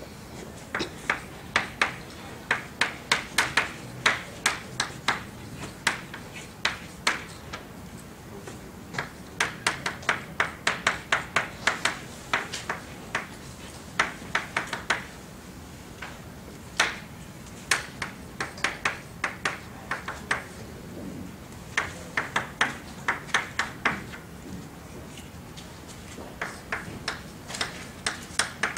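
Chalk writing on a blackboard: quick clusters of sharp taps and clicks as each word and symbol is written, with short pauses between the clusters.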